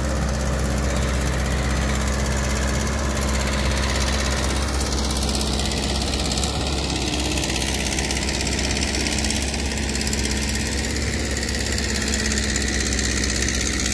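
Caterpillar E120B hydraulic excavator's diesel engine running steadily at an even speed, with no change in pitch or level.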